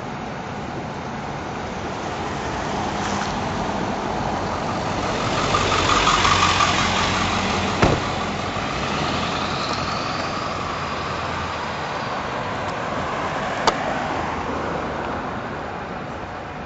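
Car engine and tyre noise of driving along a town street, a steady rumble that swells to its loudest about six seconds in. Two short sharp clicks come about six seconds apart.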